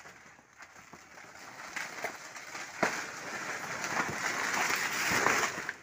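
A banana plant's trunk being pulled over by hand: its fibrous stem tears and cracks, with a rustle of its leaves. The sound grows louder, with sharp cracks about three and four seconds in, and cuts off just before the end.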